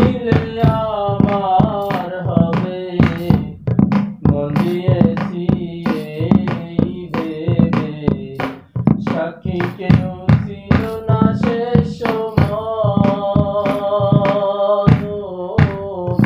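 Male voice singing a Bengali folk song in long, drawn-out held notes over a steady percussive beat.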